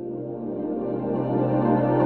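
Ambient outro music: sustained synth-like tones over a steady low note, swelling gradually louder.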